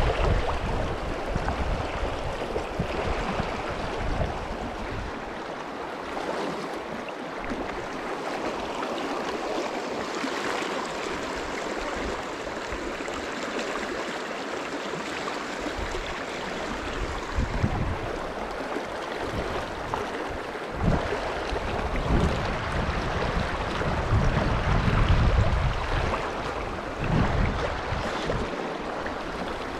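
River water flowing steadily over a shallow rocky stretch, with wind buffeting the microphone in low rumbling gusts at the start and again and again in the second half.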